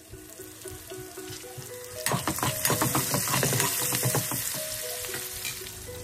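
Food sizzling and crackling in a hot pan, starting suddenly about two seconds in and stopping abruptly near the end, over soft background music.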